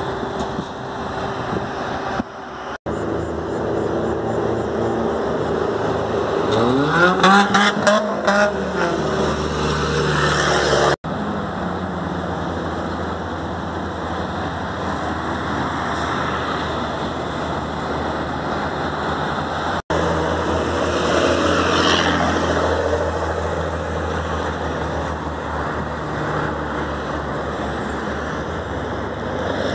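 Road traffic, with heavy trucks and cars passing, in several short clips that each cut off abruptly. About seven seconds in, the loudest moment, a vehicle engine passes close with its pitch rising and then falling.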